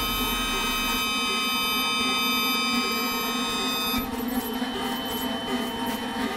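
Experimental electronic music from a live set. A cluster of steady, high-pitched buzzing tones cuts off about four seconds in, leaving a grainy, flickering low drone.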